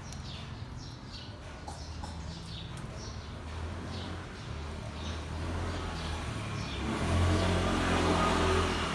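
Low engine rumble of a motor vehicle that grows louder about seven seconds in, as if passing close by, with faint short high chirps over it.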